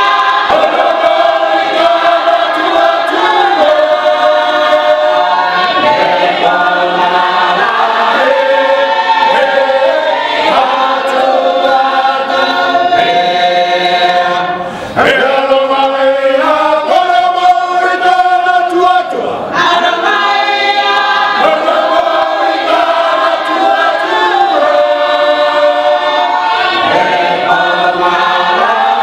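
Choir singing, with long held notes and a brief break about halfway through.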